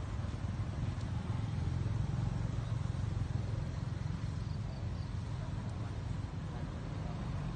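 Steady low rumble of outdoor background noise with a faint hiss above it and no distinct events.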